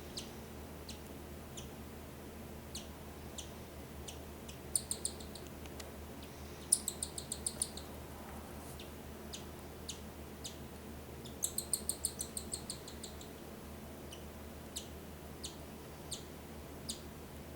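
Cockatiel chick's high-pitched begging peeps while being fed by its mother, coming in quick runs of several calls three times, with single peeps in between.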